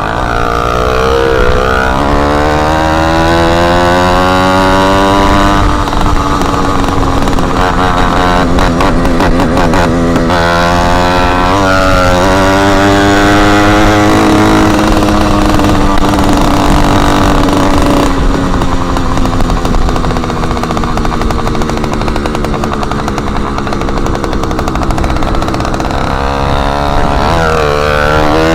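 Motorized bicycle's small engine running loud with the tip missing from its exhaust. The pitch climbs and drops several times as it speeds up and eases off, holding steadier for a stretch in the middle.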